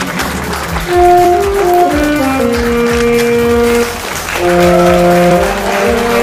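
Instrumental music: a slow melody of long held notes on a brass-like wind instrument, stepping from pitch to pitch.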